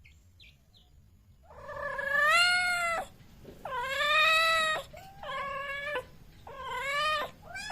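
Cat meowing: four drawn-out meows in a row, beginning about a second and a half in.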